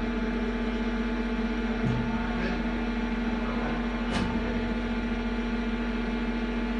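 Mori Seiki TL-40 CNC lathe running with a steady mechanical hum holding one constant tone, with a couple of faint ticks about two and four seconds in.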